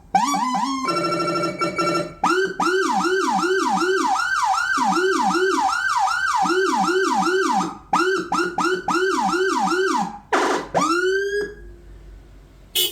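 Electronic emergency-vehicle siren cycling through its tones. A few quick rising chirps give way to a fast repeating yelp of about four sweeps a second, sounding at two pitches at once and broken by short pauses. Near the end come a short harsh blast and a single rising wail that cuts off, then a brief blast.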